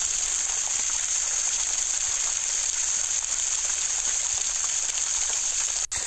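Small spring-fed waterfall splashing into a shallow pool: a steady, even hiss of falling water, with a brief break just before the end.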